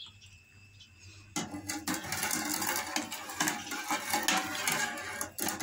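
Steel spoon stirring milk in a metal pot: a continuous scraping, swishing stir with small clinks, starting about a second and a half in and stopping just before the end.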